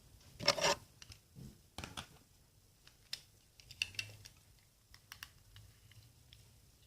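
Irregular clicks, taps and short scrapes of something being handled, loudest about half a second in.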